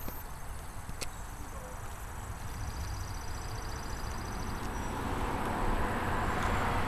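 Outdoor background: a sharp click at the start and a fainter one about a second in, an insect's fast even ticking call for about two seconds in the middle, and a rushing noise that grows steadily louder toward the end.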